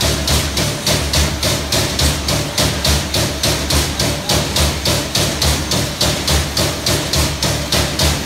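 Trumpf TruMatic 3000R CNC turret punch press punching galvanised mild steel sheet at high speed: a rapid, even rattle of sharp punch strikes, about four to five a second, over a steady low machine hum.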